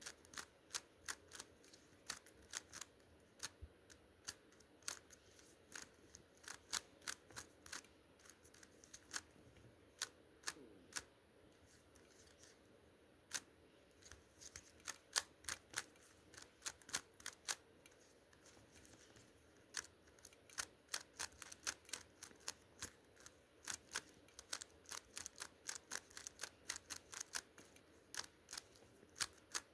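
GAN speed cube being turned by hand during a solve: quick plastic clicks of face turns, coming in irregular runs of several a second with brief pauses between them.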